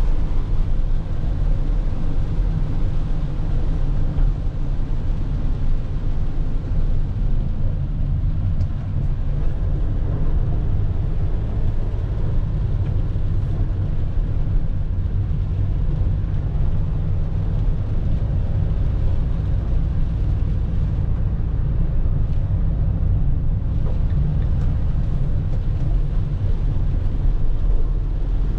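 Inside the cab of a Peugeot Boxer III van under way: its 2.0 BlueHDi diesel engine runs with a steady low drone, mixed with the hiss of tyres on a wet road.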